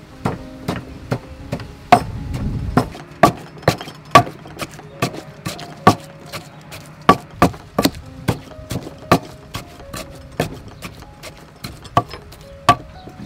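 Wooden pestle pounding fresh red chilies in a wooden mortar: a run of dull knocks, about two a second, as the chilies are crushed to a wet paste.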